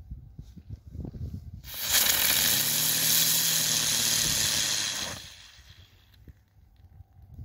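Europyro EP-3001-3 Whirl Fairy ground spinner firework catching about two seconds in and hissing loudly as it sprays sparks for about three seconds, then fading out as it burns down.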